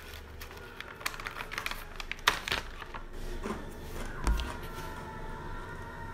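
Irregular crunchy clicks and crackles of someone eating a crisp snack. Just after four seconds there is a low thump, and soft steady music tones come in.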